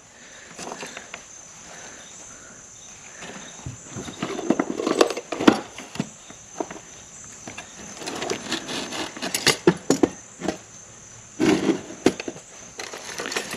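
Hands rummaging through a wooden drawer and a tin box of small metal sewing-machine attachments, giving irregular clicks, rattles and rustles. Insects chirr steadily in the background.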